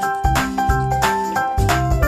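Background music with a steady beat: a keyboard melody over a deep bass, with a percussive hit about three times a second.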